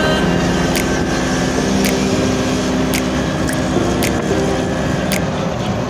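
Steady engine and road noise heard from inside a moving auto-rickshaw, with a faint sharp tick about once a second.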